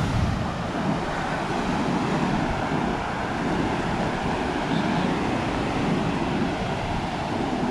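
Ocean surf breaking on a sandy beach, a steady wash of noise, with wind buffeting the microphone.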